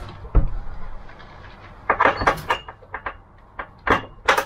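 Ratchet tie-down straps being fastened to E-track in a cargo van: a series of sharp metal clacks and rattles from the buckles and track fittings as a pallet is secured.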